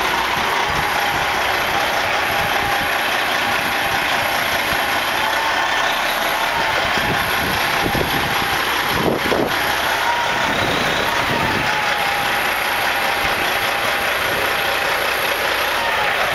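Heavy diesel truck engine running steadily at low speed as the truck is manoeuvred into a parking spot, with a faint wavering whine and a brief surge about nine seconds in.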